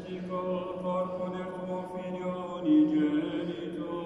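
Chanted Mass liturgy: a male voice intoning in long held notes, with a louder note near the end.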